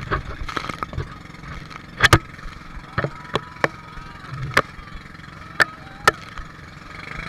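Banana boat ride at speed over choppy sea: a steady engine drone from the towing boat under rushing wind and water, broken by irregular sharp knocks and splashes as the boat bounces over the waves.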